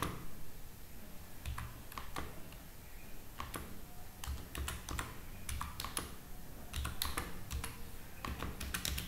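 Laptop keyboard being typed on: irregular keystroke clicks in short clusters with brief pauses, as a username is keyed in.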